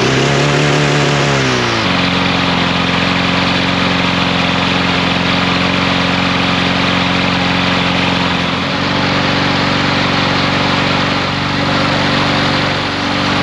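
Walk-behind lawn mower engine running again after its carburetor was cleaned of rust to cure fuel starvation. Its pitch wavers for the first couple of seconds, settles to a steady speed, then falls away near the end as the engine slows.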